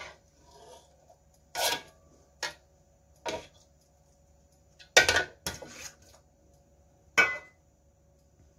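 Metal spatula scraping and knocking against a metal wok as cooked pork liver slices are scooped out of the water, in about six separate strokes, the loudest about five seconds in.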